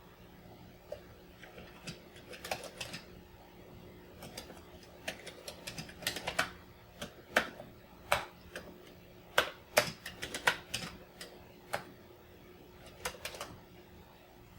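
Commodore 64 keyboard keys clacking as they are pressed, in irregular single strokes and quick runs, over a faint steady hum.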